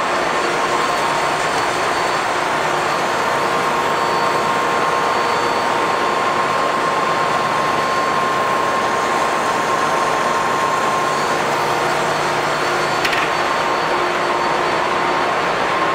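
Loud, steady din of a container ship's engine room: the diesel engines and auxiliary machinery running, with a steady whine over the noise that fades about eleven seconds in. A brief click sounds about thirteen seconds in.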